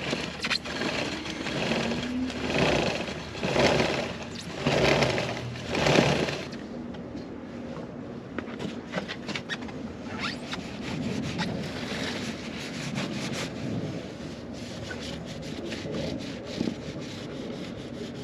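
A cloth rubbing along a freshly lubed Kawasaki ZX-6R drive chain in four or five long strokes about a second apart, then quieter scraping with light scattered clicks.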